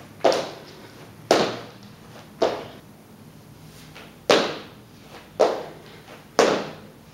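Sneakered feet landing on the floor with each jump of plyo jacks (squat jumping jacks): six thuds about a second apart, with a pause of nearly two seconds in the middle, each trailing off briefly.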